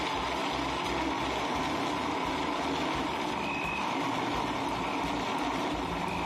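Countertop blender motor running steadily at speed, churning crushed ice and fruit into a slush.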